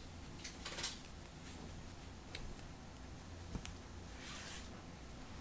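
Faint scattered crinkles and clicks of plastic candy drink pouches being handled, with a brief soft hiss about four and a half seconds in.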